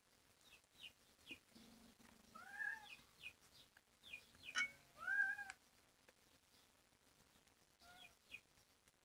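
A cat meowing twice, each meow rising and then falling in pitch, about two and a half seconds apart. Short high chirps sound in between.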